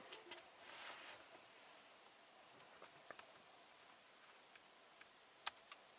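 Near silence: a faint steady high-pitched tone, a brief soft hiss about a second in, and a few soft clicks near the middle and end.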